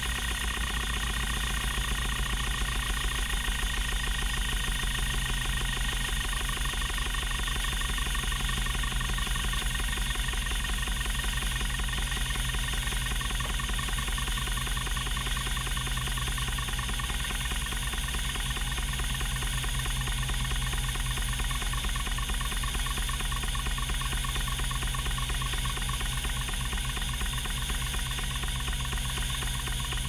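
Lapine Titan 3532 hard drive seeking non-stop during a seek test: its band-driven stepper actuator chatters in a rapid, even stream of steps as the heads swing back and forth, over the steady sound of the 3600 RPM spindle.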